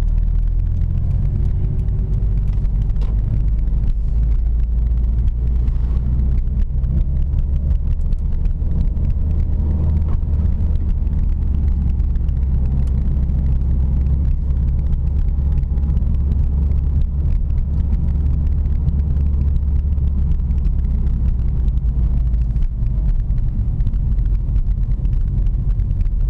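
Subaru WRX STI (VAB) turbocharged EJ20 flat-four under boost, a steady low rumble with faint, shifting tones above it: the abnormal noise that appears when boost is applied.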